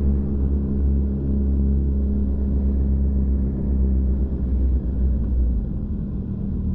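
Motorcycle engine running at a steady speed under a heavy low rumble of wind on the microphone; the low rumble eases about five and a half seconds in.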